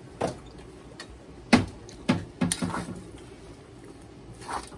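Metal spoon knocking and scraping against a steel wok while stir-frying fried rice: a handful of sharp clanks, the loudest about a second and a half in, a quick cluster after it, and one more near the end.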